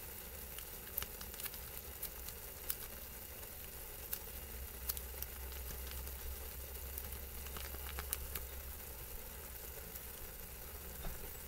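Instant noodles in a little water sizzling steadily in a hot pan, with scattered faint clicks and crinkles as a foil sauce packet is squeezed out.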